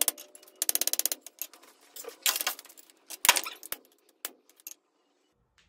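Hand hammer striking red-hot steel on an anvil, partly through a guillotine tool, while forging a breech plug tang. A quick run of light, rapid strikes comes about half a second in, then heavier single blows near two and three seconds and a few scattered taps, stopping near five seconds.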